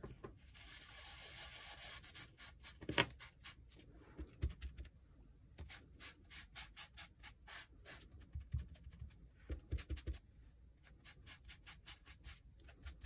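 Foam sponge dabbed again and again on an ink pad: a run of soft, quick taps and light rubbing, with one louder tap about three seconds in.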